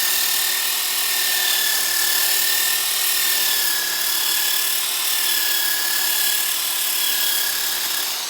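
Power tool spinning a 125 mm, 80-grit sanding disc against wood: a steady whine over a strong hiss, easing slightly lower in pitch. It is switched off near the end and the sound falls away.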